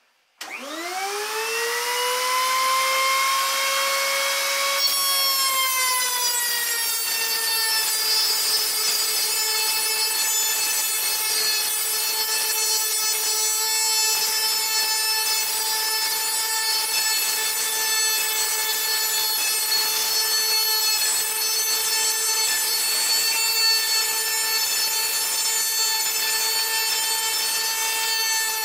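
Handheld wood router mounted under a router table switches on and spins up with a rising whine over about four seconds. It then runs at a steady high whine, dipping slightly in pitch about five seconds in, as a wooden board is fed along the fence past the bit to cut a groove.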